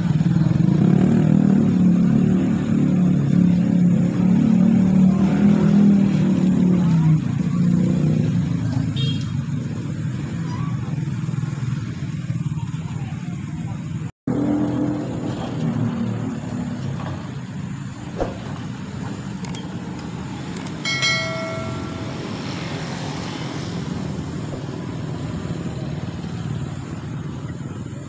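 Road traffic of cars and motorcycles driving over a busy level crossing, engines running as they pass. It is loudest in the first several seconds, then eases. A short horn toot sounds about two-thirds of the way through.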